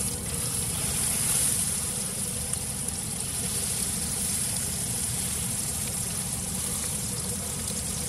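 Tomahawk ribeye steak sizzling in hot butter and oil in a frying pan, its freshly turned side searing: a steady hiss, a little louder about a second in, over a low rumble.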